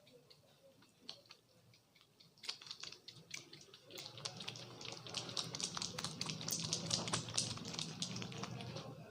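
Hands working over a scalp and hair during a barber's head massage: a dense run of quick pats, taps and crackling rubs. It starts about two and a half seconds in and gets louder and fuller from about four seconds.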